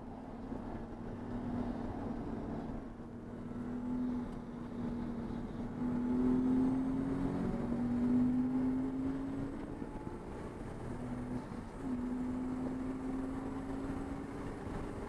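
Race car engine running under load. Its note climbs slowly in stretches, dipping briefly a few times, and is loudest about halfway through.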